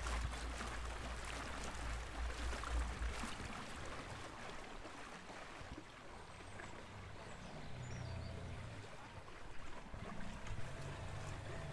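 Water splashing and lapping against the aluminium hull of a small electric boat moving along a canal. Wind buffets the microphone for the first three seconds, then drops away.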